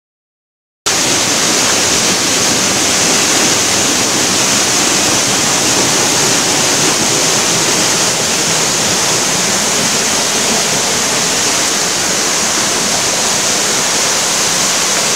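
Rushing water of a rocky mountain stream, a loud steady rush that starts abruptly about a second in.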